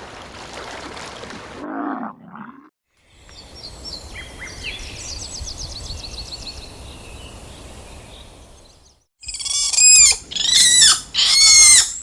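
Animal calls with steady background noise: faint high bird chirps in the middle, then three loud quavering calls near the end.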